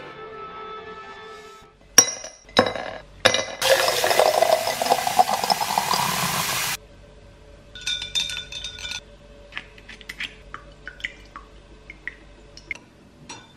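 Tap water running into a glass jar for about three seconds and cutting off suddenly, after a few sharp clinks of the glass. Lighter clinks and taps against the jar follow.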